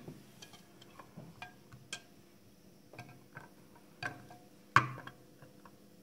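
Irregular small clicks and taps of an alligator clip and metal plate being handled against the rim of a glass beaker, with one sharper knock near the end.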